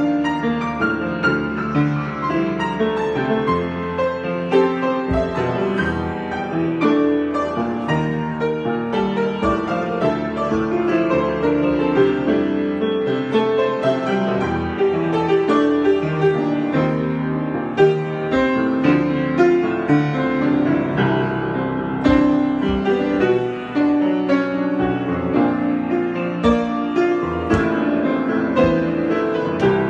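Solo piano improvisation, many notes played in a flowing, continuous texture with chords in the low-middle range.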